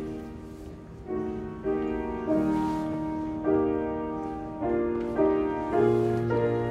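Piano playing slow, soft chords, a new chord struck about every half second to a second, as quiet accompaniment to silent prayer.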